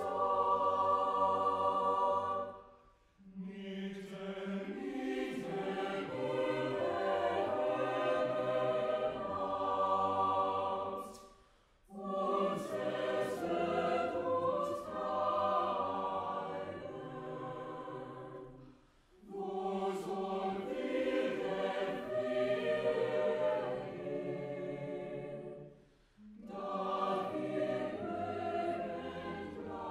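Chamber choir singing sustained chords in long phrases, with four brief breaks between phrases.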